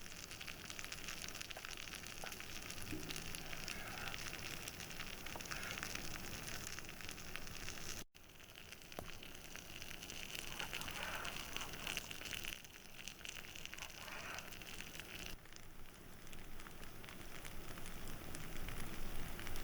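Wood campfire with food cooking over it: a steady sizzling hiss full of small crackles. The sound cuts off abruptly about eight seconds in and picks up again with a slightly different sizzle.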